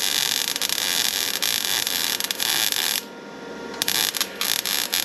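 Electric arc welding on a snowblower frame: the arc crackles steadily for about three seconds, stops, then is struck again about a second later in a few short, broken runs.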